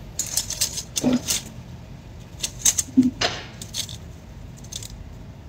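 Stacked gold bangles clinking and jingling against each other in short bursts of metallic clicks as the wrists move, with two brief vocal sounds about one and three seconds in.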